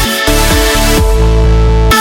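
Electronic dance music with a heavy bass line and synth chords, the bass dropping out briefly twice.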